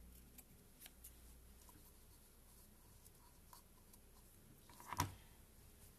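Faint snips and scrapes of sewing scissors trimming a sewn fabric seam, with a sharper knock about five seconds in.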